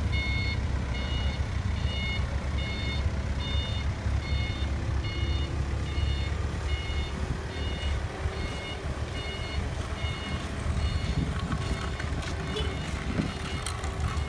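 Forklift's engine running with its reversing alarm beeping, about three beeps every two seconds; the beeping stops about ten seconds in while the low engine rumble carries on.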